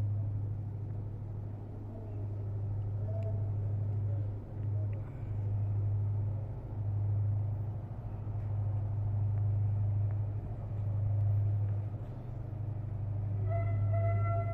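Electric locomotive standing with its blowers running: a steady low hum that swells and dips every second or two. A brief sound with several steady pitches begins near the end.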